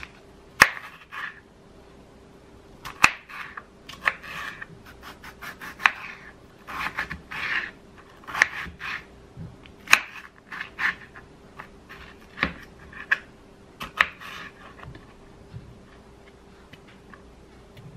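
Kitchen knife cutting a tomato on a plastic cutting board: sharp taps of the blade meeting the board between short rasping strokes through the skin and flesh, thinning out to a few light knocks over the last few seconds.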